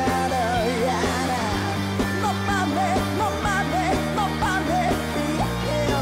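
Rock band playing live: a man singing a wavering melody over electric guitar chords, the chords changing a few times.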